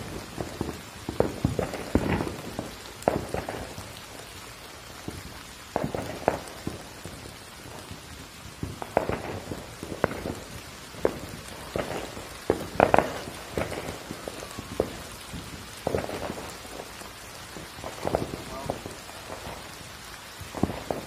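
Steady rain falling, with quiet, indistinct spoken words layered over it in short irregular bursts.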